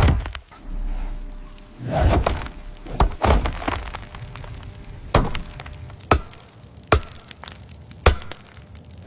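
About eight heavy chopping blows of an axe into wood, irregularly spaced, some followed by cracking and splintering.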